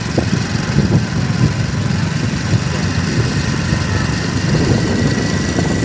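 Wind buffeting the microphone on a moving motorcycle, with the motorcycle's engine running underneath.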